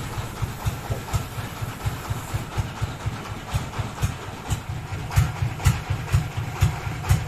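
Engine running at a steady idle with a low, pulsing chug of about four beats a second, with a few sharp knocks over it near the end.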